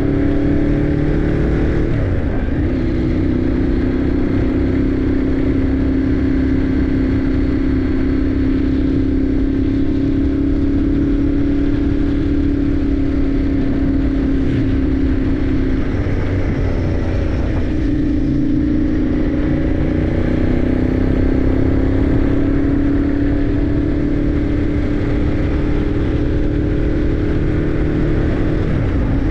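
Motorcycle engine running at cruising speed, heard from a camera mounted on the bike, over a steady rush of wind. Its note breaks and resettles about two seconds in, again around the middle and once more near the end, and climbs slowly in pitch in between.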